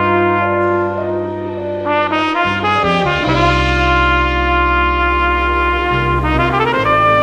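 Slow jazz ballad played live: a flugelhorn lead holds long notes over sustained bass and accompaniment, with upward runs about two seconds in and again near the end.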